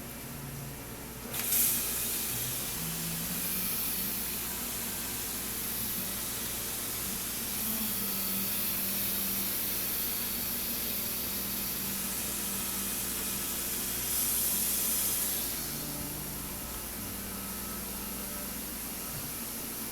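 Hissing spray over a steady low machine hum, starting suddenly about a second in and growing louder for a second or so near the end.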